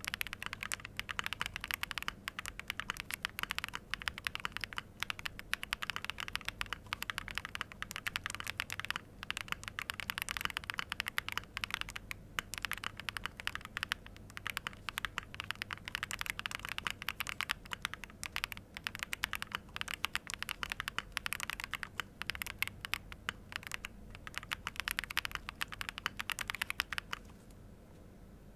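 Typing on a ZOOM75 TIGA mechanical keyboard fitted with BSUN Snow Diane switches and Chemical 001 keycaps: a fast, continuous clatter of keystrokes that stops about a second and a half before the end.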